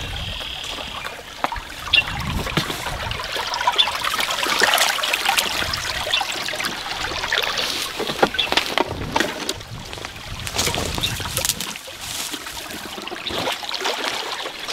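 Irregular rustling and crackling of people walking through brush and dry vegetation, with many small snaps and crunches.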